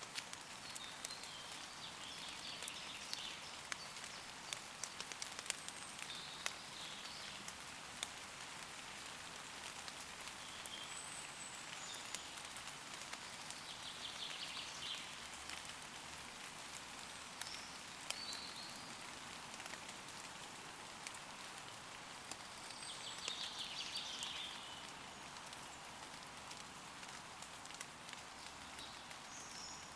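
Steady rain falling on leaves, with individual drops ticking sharply. Short songs of woodland birds come through the rain several times, most plainly about halfway and again about three quarters of the way in.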